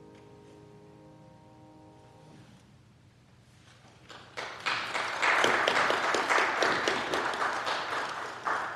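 The last keyboard chord of a choir anthem dies away, then the congregation applauds for about four seconds.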